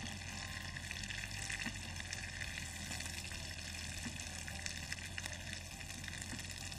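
Steady sizzling hiss of vegetables sautéing in oil and butter in a frying pan, stirred with a spatula.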